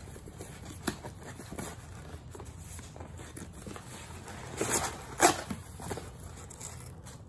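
Cardboard mailer box being opened by hand: flaps lifted and folded back with light scraping and rustling, and a sharp snap of cardboard a little after five seconds in.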